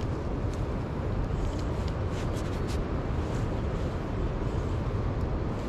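Steady low rumble of outdoor background noise, with a few faint, short ticks scattered through it.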